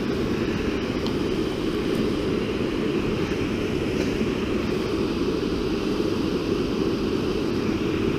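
Steady rush of fast river water pouring through the outflow below a dam, an even noise with no let-up.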